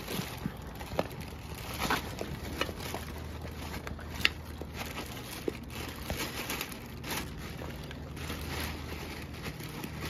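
A Doberman eating: wet chewing and crunching of kibble and cooked meat-covered bones, heard as irregular clicks and cracks, the sharpest about four seconds in.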